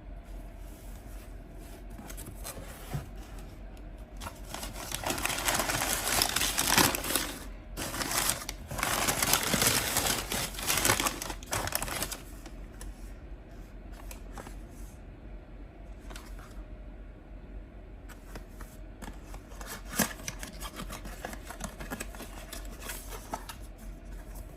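Packaging being handled and opened: rustling and crinkling, loudest for several seconds in the middle, with scattered taps and clicks before and after.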